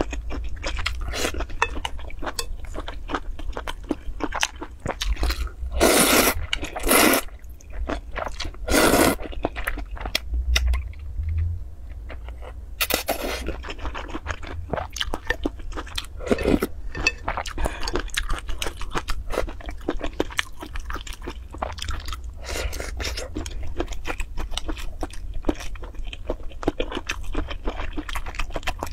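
Close-miked eating of noodle soup with sausages: wet chewing and biting throughout, with a handful of louder slurps of broth and noodles in the first half.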